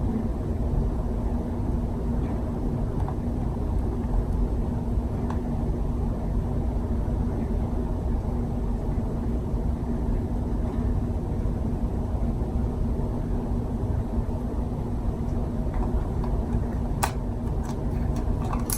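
Steady mechanical hum with a constant low tone, and a few small clicks near the end.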